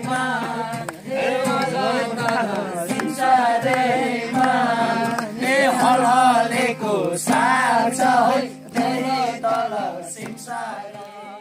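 Voices singing a Nepali folk song together over a steady low accompaniment, fading out near the end.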